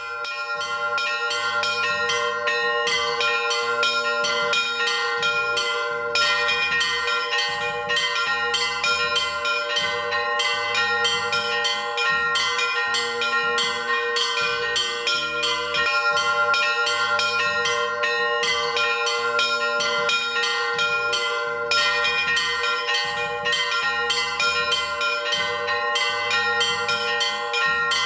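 Church bells ringing: several bells of different pitch struck in a fast, continuous pattern, their tones ringing on together.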